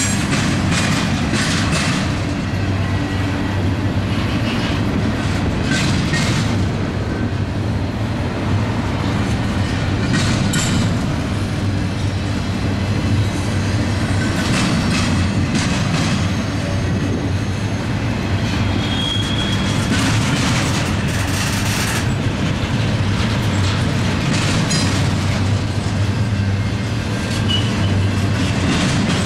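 Double-stack intermodal freight train's well cars rolling past: a steady rumble of wheels and cars, with wheels clicking and clanking over the track now and then.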